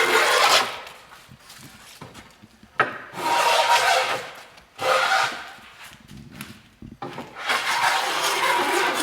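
A hand tool rasping along wood in long strokes of a second or two each, with short pauses between them: shaping a wooden hull plank by hand.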